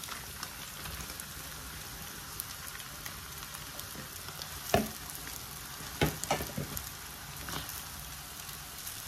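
Food sizzling steadily in a frying pan on a gas hob as cooked rice is added to fried egg and onion and stirred. A sharp knock about halfway through and a short run of clatters a second later as utensils knock against the pan.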